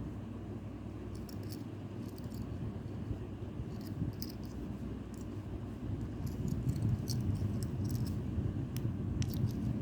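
A key chain being handled, giving faint scattered clicks and light rattling over a steady low rumble.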